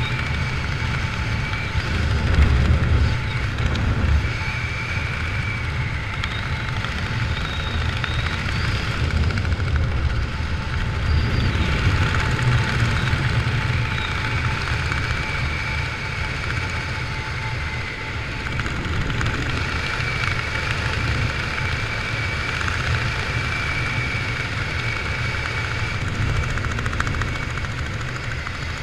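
Steady wind rushing over a helmet-mounted camera's microphone during parachute canopy flight, a low rumble with a faint high whistle in it.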